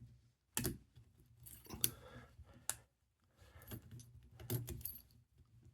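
Clicks and rattling scrapes of a metal gun trigger lock, with plastic-rubber stops, being fitted around an air rifle's trigger, in several short bursts with brief pauses between them.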